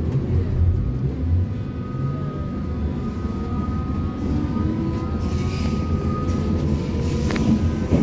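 Berlin U-Bahn F92 train pulling out of a station, with the rumble of the car and steady whining tones from the traction drive. A single sharp click comes near the end.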